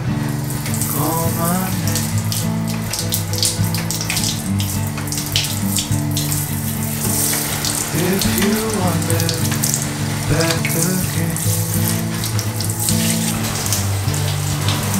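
Water spraying from a hand-held head onto large houseplant leaves, a continuous hiss with uneven splashes, over background music with a melody.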